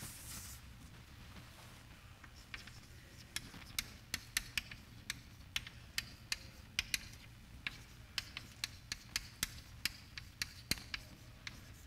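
Chalk writing on a blackboard: a quick, irregular run of sharp taps and clicks as the chalk strikes and lifts, starting a couple of seconds in, over a low steady hum.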